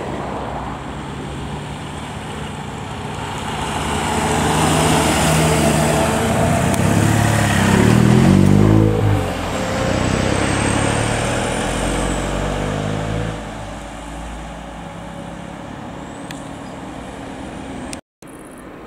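MAN fire engine's diesel engine driving past: it grows louder, is loudest about eight seconds in, its engine note dropping in pitch as it passes, then fades as the truck drives away. The sound cuts out briefly near the end.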